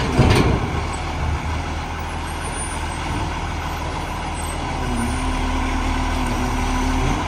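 Iveco front-loader garbage truck's diesel engine running steadily as the truck backs away from an emptied steel bulk bin, with a brief metallic clatter right at the start. About five seconds in, a steady droning tone joins the engine and it grows slightly louder.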